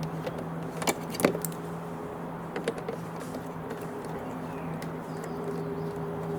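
Peugeot 308 front door being handled: a few sharp clicks, the loudest about a second in, over a steady low hum. The clicks are of the kind a worn door check strap makes as the door swings open.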